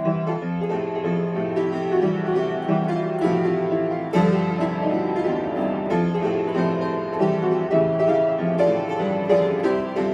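Upright piano played with both hands, a lively arrangement from a medley of animal songs, with a bass line under a moving melody.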